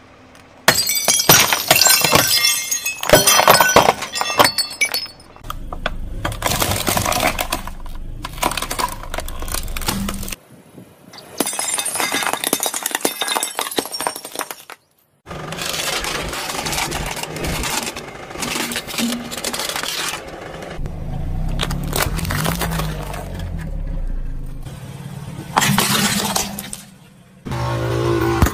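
A car tyre rolling over and crushing objects, in a series of short takes: glass and ceramic shattering and crunching under the wheel, many sharp cracks and clinks in quick succession. A car's low engine hum runs under some of the takes.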